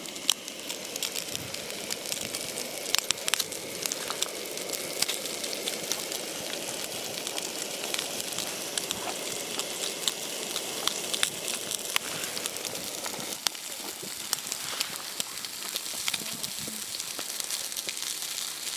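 Small campfire crackling and popping: an irregular run of sharp snaps over a steady hiss.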